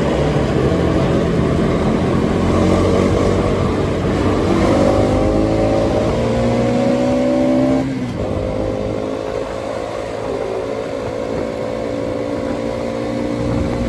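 Motorcycle engine running on the move, with a low rumble under it. Its pitch climbs steadily for a few seconds as it accelerates, then drops suddenly just before halfway and carries on steadier.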